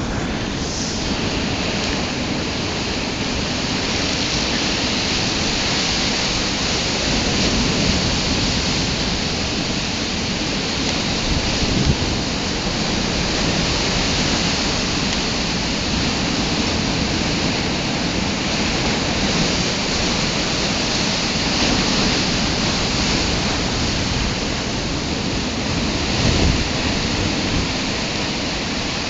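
Heavy storm surf: rough waves breaking and foaming up the beach in a steady loud rush. Wind buffets the microphone with a low rumble that swells briefly twice.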